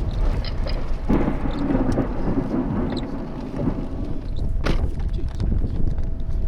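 Low rumbling thunderstorm noise with scattered small ticks. A swell of rumble comes about a second in, and there is a single sharp click a little after four and a half seconds.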